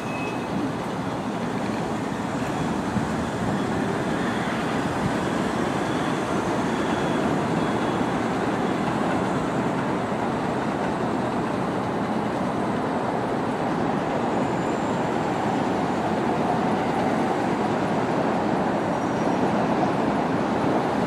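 Bombardier R62A subway train running away along the elevated track, a steady noise of steel wheels on the rails with a few faint, brief high squeals.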